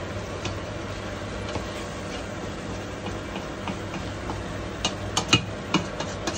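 A wooden spatula stirring a thick fish curry in a stainless-steel pot, with scattered clicks and knocks against the pot that come thicker and louder about five seconds in, over a steady low hum.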